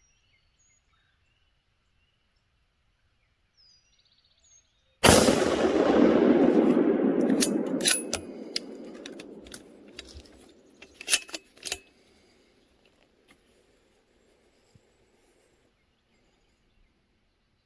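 A single close gunshot about five seconds in, its echo rolling away over several seconds, followed by a few sharp clicks.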